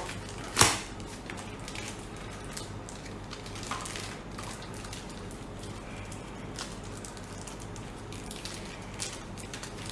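Hands handling the packaging of a silver bullion coin: one sharp click about half a second in, then faint scattered small clicks and rustles.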